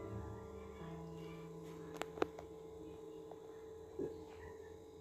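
Soft background music of held keyboard-like notes, with two sharp clicks about two seconds in and a softer knock near four seconds.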